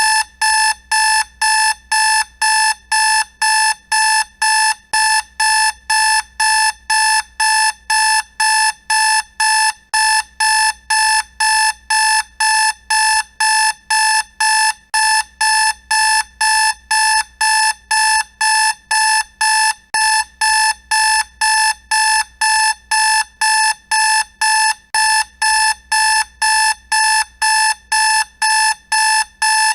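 Electronic alarm clock beeping: the same single-pitched beep repeated evenly, about twice a second, with no change in pace or pitch.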